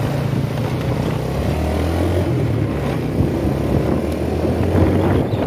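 Motorcycle engine running under way, with the rush of wind on the microphone; the engine note drops to a lower steady pitch about a second and a half in.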